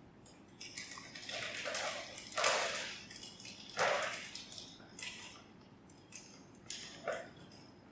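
Soft rustling and shuffling as a person shifts and settles on a stool: a run of short noisy swishes, the two loudest about 2.5 and 4 seconds in, with fainter ones after.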